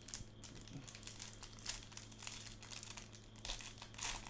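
Clear plastic wrapper of a trading card pack crinkling in quick, irregular crackles as hands open it and handle the cards, over a faint steady low hum.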